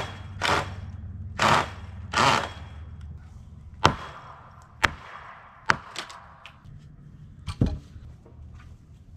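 Pulling netting and wire off the top rail of a wooden fence: a few short scraping rasps, then about six sharp snaps and knocks over the next four seconds.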